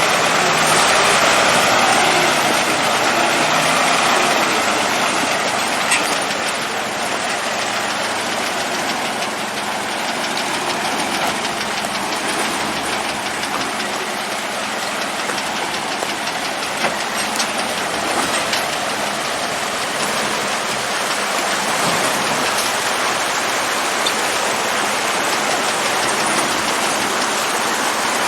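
ZIL truck's six-cylinder side-valve petrol engine running steadily with a rapid, even clatter.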